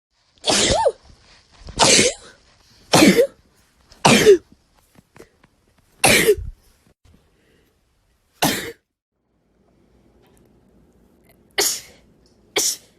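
A person sneezing repeatedly: about eight sharp, explosive sneezes. The first five come in quick succession, roughly a second apart, and the rest are spaced more widely near the end.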